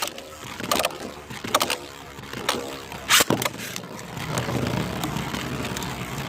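Beyblade spinning tops whirring in a plastic stadium, with several sharp clacks as they collide in the first few seconds, then a steadier spinning whir.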